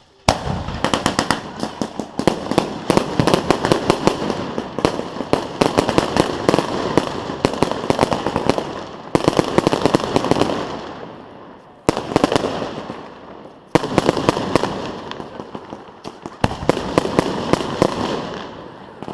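Fireworks going off: rapid volleys of sharp bangs and crackling. They start abruptly and come in waves, each fading before a fresh barrage starts suddenly, about 9, 12, 14 and 16 seconds in.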